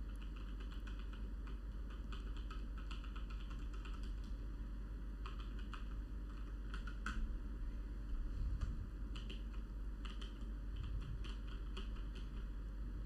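Typing on a Galax HOF gaming mechanical keyboard with Cherry MX Brown switches: irregular runs of quick key clicks broken by short pauses, as the keys are tried out.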